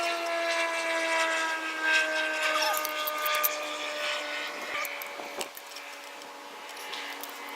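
A steady hum with several overtones, sliding slowly lower in pitch. Over it come scattered sharp clicks and knocks of a wrench working on the cylinder head bolts as they are torqued down on the new head gasket.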